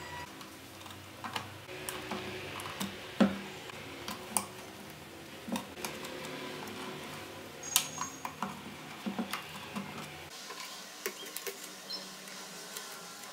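Irregular clicks and light clatter of hard plastic mixer-grinder parts, wires and a screwdriver being handled as the housing is reassembled, with sharper knocks about 3 and 8 seconds in. A faint low hum underneath cuts off about ten seconds in.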